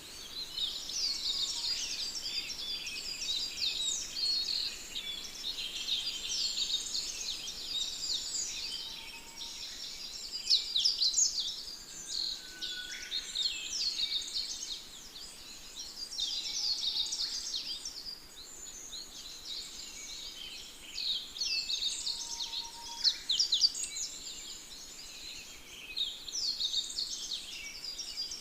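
Dense chorus of many birds chirping and twittering, with quick high notes overlapping continuously and a few lower whistles now and then.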